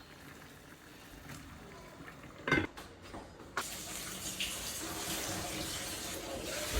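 Water running from a tap into a sink, turned on about halfway through and then running steadily. A sharp knock comes shortly before the water starts.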